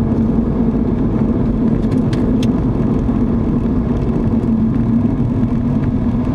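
Steady road and engine noise heard inside a moving car's cabin, with a constant low hum and a couple of faint ticks about two seconds in.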